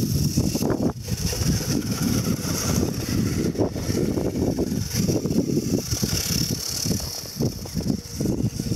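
1/10-scale RC4WD FJ40 scale crawler driving over hard-packed snow: a steady high electric-motor and gear whine that swells and eases with throttle, over a rough low rumble.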